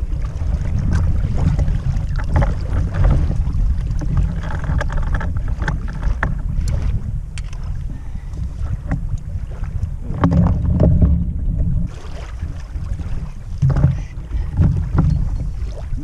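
Strong wind buffeting the camera microphone on an open boat: a heavy, gusting low rumble that swells about two-thirds of the way through, with scattered light knocks and clicks.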